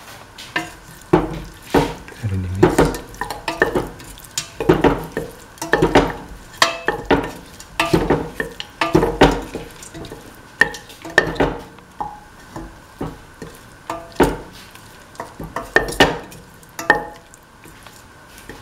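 A spatula stirring and scraping duck meat, chillies and spices around a stainless steel pot, with irregular clacks and scrapes against the metal. The strokes come thick and fast through the first half and thin out to a few scattered knocks near the end.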